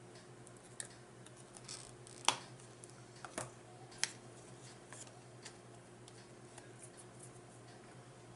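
Faint eating and table sounds: scattered sharp clicks and light taps, the loudest about two seconds in and two more a second or so apart after it, over a steady low hum.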